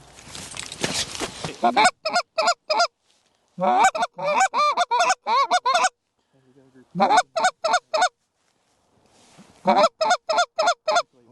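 Goose calls blown in fast runs of short honks and clucks, with some longer rising-and-falling notes, in four bursts separated by pauses. They are hailing an incoming flock of Canada geese. Wind noise on the microphone is heard before the calling begins.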